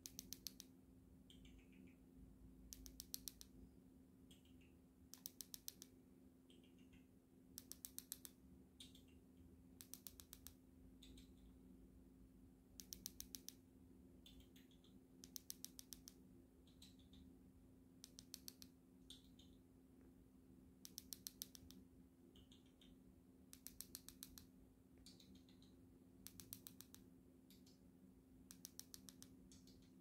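Cockatiel making short bursts of rapid soft clicks, about every two to three seconds, with faint chirps between them, over a low steady hum.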